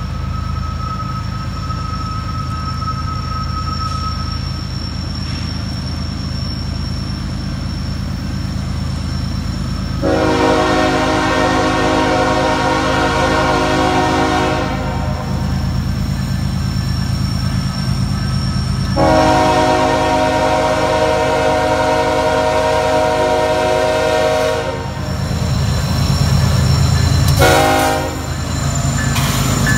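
Diesel freight locomotive approaching and passing with a steady low engine rumble that grows louder as it draws level. Its air horn sounds two long blasts, then a short one, then another starting at the very end: the grade-crossing warning pattern.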